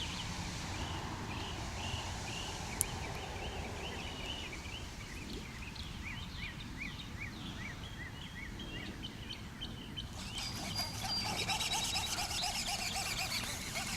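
Songbirds chirping, a steady run of short repeated chirps, with a single sharp click a little under three seconds in. From about ten seconds in, the birdsong grows denser and brighter, with fast trills.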